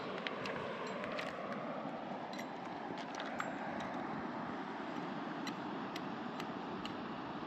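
Steady rush of a fast-flowing mountain river, with a few light clicks and taps scattered through it.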